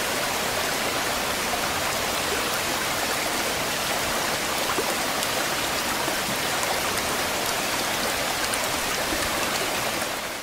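Steady rushing water noise, a dense even hiss with faint scattered drip-like ticks, fading out near the end.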